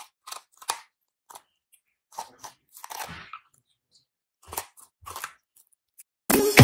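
A husky gnawing a large bone, with short, irregular crunches of teeth on bone. Music starts near the end.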